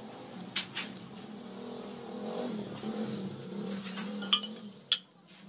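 A motor engine running steadily with a slightly wavering pitch, fading out near the end. Sharp metal clinks from the sheet-metal strip being handled cut across it, the loudest two about four and a half and five seconds in.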